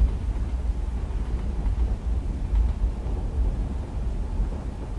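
Steady low rumble of a train running, heard as from inside a carriage, with a soft wash of rain on the window.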